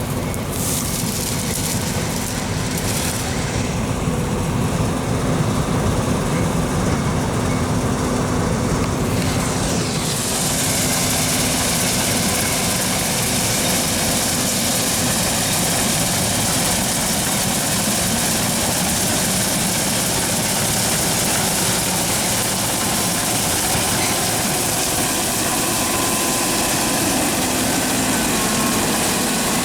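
John Deere 9400 combine running steadily with a constant hum. About ten seconds in, a loud high hiss comes up and stays.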